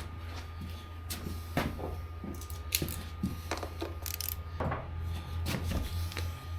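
Irregular metallic clinks and taps of hand tools and small bolts as fasteners are worked loose on a motorcycle's engine side cover.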